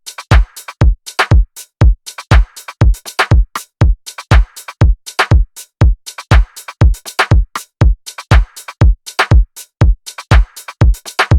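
Background electronic dance music with a steady, loud kick drum about twice a second.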